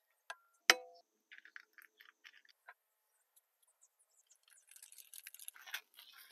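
An egg cracked with one sharp knock against the edge of a small electric skillet about a second in, with a brief ring. Light scattered clicks follow, then a shaker rattling and a spatula scraping in the pan near the end.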